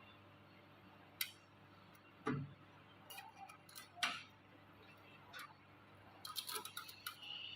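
Irregular sharp clicks and snips of cutters cutting plastic cable ties, with one duller knock about two seconds in and a quick run of clicks near the end.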